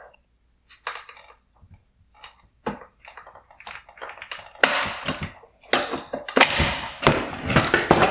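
Hard plastic headlight parts clicking, then rattling and scraping as the mounting bracket tabs are released and the bi-xenon projector is worked loose from the housing. The handling gets busier and louder about halfway through.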